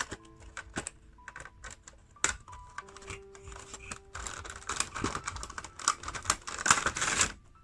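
Clicks, taps and crinkling of a Funko Pop box and its plastic insert being handled and opened, with a dense rustle of packaging from about four seconds in to just after seven. Soft piano background music plays underneath.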